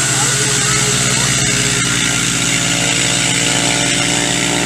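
Motorglider's propeller engine running at a steady pitch as the aircraft taxis past close by.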